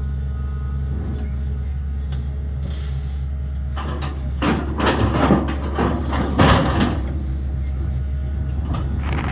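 Sany excavator's diesel engine running steadily with a low hum. About four seconds in, a louder, noisy spell of scraping and clattering works sound lasts for roughly three seconds.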